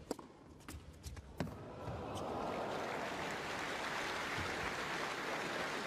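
A few sharp tennis-ball strikes and bounces on a hard court, then from about two seconds in a crowd applauding steadily after the point.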